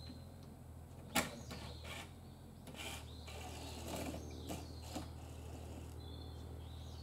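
Scattered knocks and clanks of work on the retaining-wall formwork, the loudest and sharpest about a second in, over a steady low machine hum. Birds chirp at the start and near the end.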